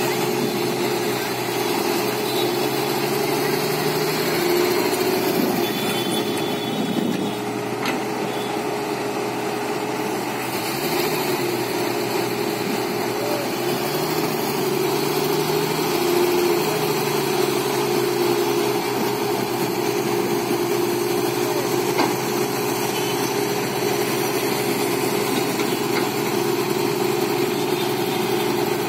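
Heavy diesel engine running steadily, its pitch wavering slightly now and then.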